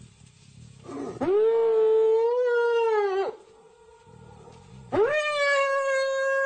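Spotted hyena giving two long calls, each sweeping sharply up in pitch, holding, then sliding down at the end.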